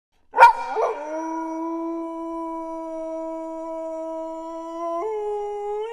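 A wolf howling: one long steady howl that steps up in pitch about five seconds in and breaks off just before the end.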